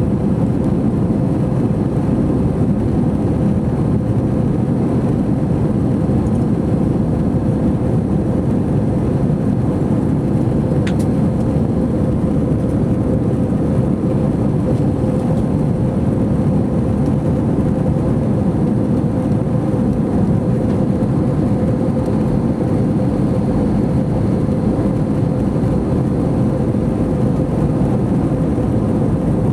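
Steady engine and airflow noise heard inside the cabin of an Airbus A321-213 with CFM56 engines, a deep even rush with a constant hum in it. A single faint tick about eleven seconds in.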